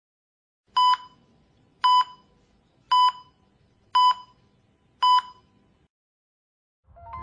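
Five short, identical electronic beeps, evenly spaced about one second apart, each a single high tone.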